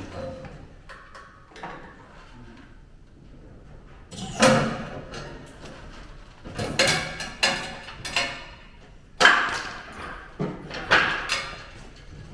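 Irregular sharp metal knocks and clanks, about eight strikes in the second half, as steel parts of a car rollover jig are worked into place.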